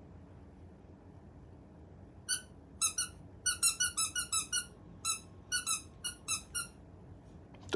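Squeaky ball toy squeezed by hand, giving about fifteen short, high squeaks in quick runs, with a sharp click right at the end.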